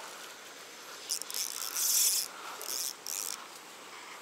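Fishing reel rasping in four short bursts, starting about a second in and loudest in the middle, while a hooked black bass is played on the line.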